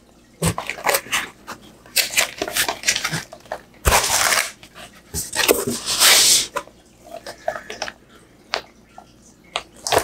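Packaging being handled as a PC power supply comes out of its box: its clear plastic wrap rustles in several short bursts, with light taps and a knock against the box.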